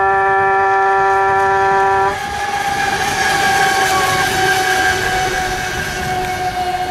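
Radio-controlled racing boats running at speed: a steady, high-pitched motor drone that changes abruptly about two seconds in to a thinner, higher drone slowly sinking in pitch.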